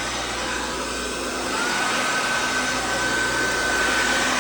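Salon blow dryers running steadily with an even rush of air and a faint whine that rises slightly about a second and a half in, then holds one pitch.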